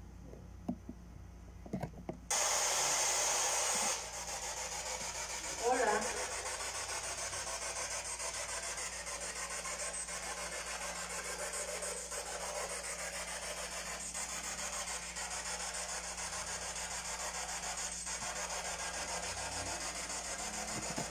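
Electronic static hiss that switches on suddenly about two seconds in. It is loudest for the first two seconds, then settles into a steady, faintly pulsing hiss. About six seconds in there is a brief wavering, voice-like sound.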